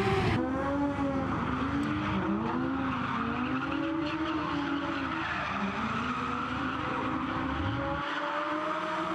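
Two drift cars in a tandem drift, their engines revving up and down while the tyres squeal and skid.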